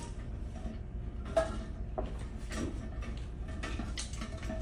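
A few light clinks and scrapes from a canister being worked up through the neck of a liquid nitrogen semen storage tank, over a steady low hum.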